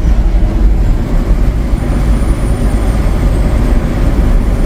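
Steady low drone inside the cab of a Peterbilt 389 semi truck at highway speed (about 55 mph): Cummins X15 diesel engine and tyre and road noise from pulling a very heavy load.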